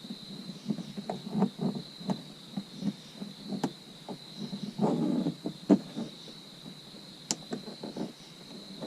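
Irregular small clicks, taps and rustles of a dash cam power cable being tucked by hand into plastic interior trim, with a busier patch about five seconds in. A steady high tone sounds underneath throughout.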